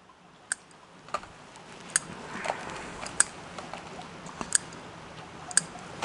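Small scissors snipping dead roots off an orchid: about seven sharp clicks at irregular intervals, with a soft rustle of roots and potting bark in between.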